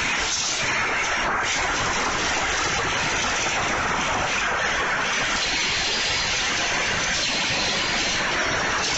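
Pachislot machine sound effect: a loud, steady rushing noise without a clear pitch.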